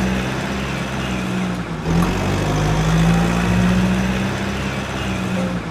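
Vehicle engine idling: a steady low hum that drops out briefly about two seconds in and again near the end, then resumes.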